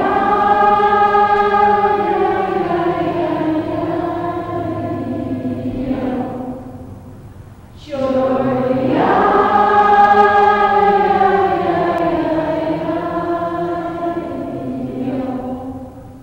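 A group of voices singing an improvised, wordless song together in long held tones that glide slowly in pitch. The first phrase dies away about six or seven seconds in, and a new one starts about a second later.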